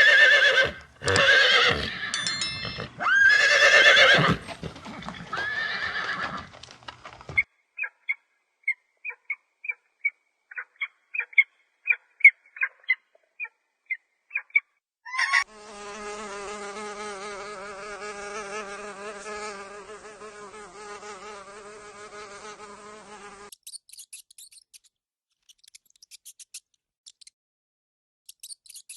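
A string of animal sounds: several loud calls over the first seven seconds, then a run of short high chirps, then about eight seconds of a steady, wavering buzzing drone, ending in faint scratchy clicks.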